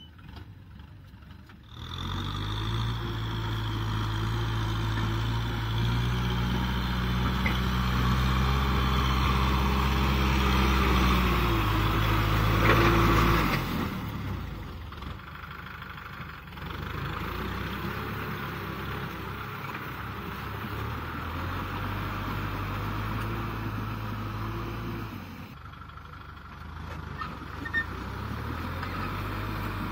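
Kubota M6040SU tractor's four-cylinder diesel engine running steadily under load while pulling a disc plough through mud. The engine grows louder in the first few seconds, drops back a little after about halfway, and dips again near the end.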